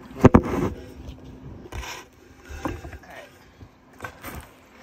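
Handling noise from a phone being moved and covered: a couple of loud knocks against the microphone just after the start, then softer bumps and rubbing.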